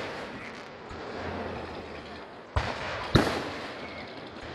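Fireworks shells bursting overhead: two sharp bangs about half a second apart near the middle, each trailing off in a rumbling echo.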